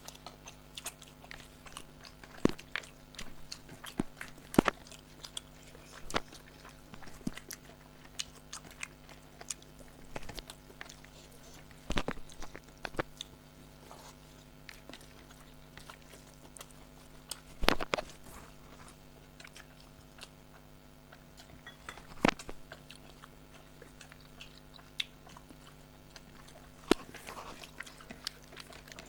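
People eating rice pulao and chicken curry: chewing and mouth sounds with scattered sharp clicks, over a steady low hum.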